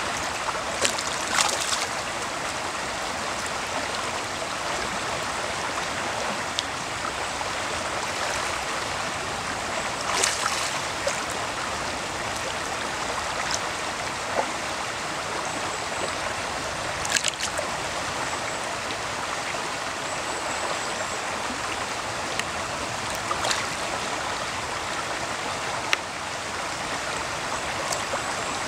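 Shallow stream running steadily over gravel, with a few brief splashes as spawning sea trout break the surface.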